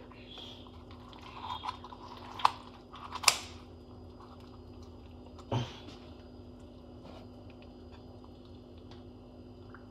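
Kitchen scissors cutting through a roast chicken's skin and rib bones: a few soft crackles, then two sharp crunching snips about two and a half and three and a half seconds in. A duller short knock follows a couple of seconds later, then only faint room hum.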